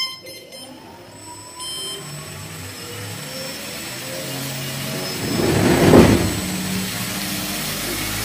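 Brushless A2212/13T 1000KV outrunner motor spinning a propeller on a thrust test rig: a motor whine whose pitch rises as it speeds up, with a swell of propeller wind noise about five to six seconds in. A short electronic beep sounds at the very start.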